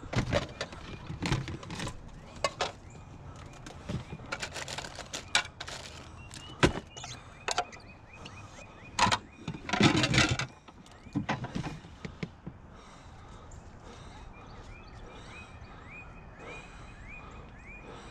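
Plastic storage totes being handled and stacked: irregular hollow knocks and clatters, the loudest cluster about ten seconds in, after which the handling stops and only faint background remains.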